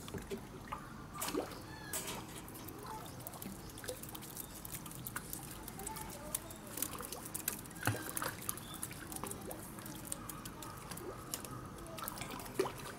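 Water trickling and lapping with a scatter of soft taps and pattering from a flock of Humboldt penguins shuffling on wet concrete, and a few brief faint chirps.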